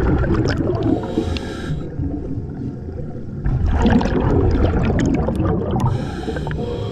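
Scuba diver breathing underwater through a regulator: a gurgling rumble of exhaled bubbles, strongest around the middle. The hiss of an inhalation comes about a second in and again near the end.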